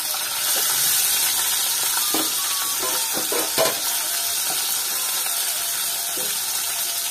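Fish pieces sizzling in hot oil in a wok, with a steady hiss throughout. A wooden spatula scrapes and knocks against the plate and pan, with a cluster of sharp taps between about two and four seconds in.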